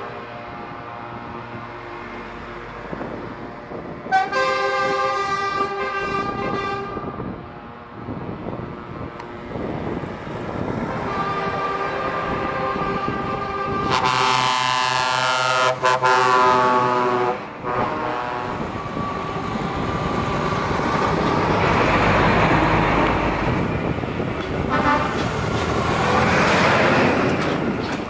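Trucks' air horns sounding in several blasts, the loudest about halfway through, as heavy diesel trucks drive out past at low speed. In the second half the rumble of diesel engines and tyres builds as a truck passes close by.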